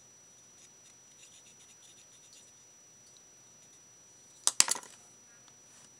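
Faint scratching and rubbing of small hard craft pieces as glue is worked onto a beaded metal pin, then a quick cluster of sharp clicks about four and a half seconds in, the loudest sound.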